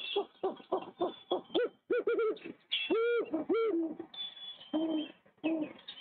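Great horned owls calling: a fast run of short pitched notes, several a second, with a few longer notes that rise and fall in pitch about halfway through.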